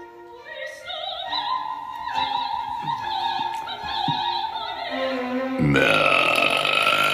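Operatic singing holding a wavering note with vibrato, then a long, loud burp starting about five and a half seconds in.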